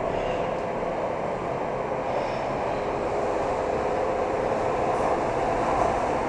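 Interior running noise of a Rotterdam RET metro car: a steady rumble of wheels and running gear with a faint steady hum, growing slightly louder toward the end.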